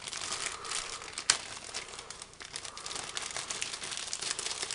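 Clear plastic bag crinkling and rustling as hands open it and handle the plastic model-kit sprues inside, with one sharp click about a second in.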